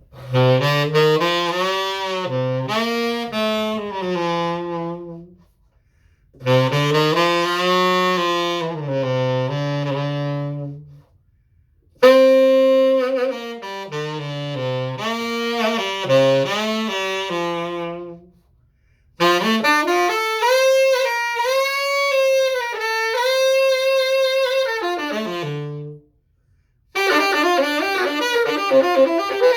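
1950s Martin Committee tenor saxophone, freshly overhauled and repadded with flat metal resonator pads, played solo in five melodic phrases with short breaths between them; the last phrase, starting near the end, is busier and more rapid.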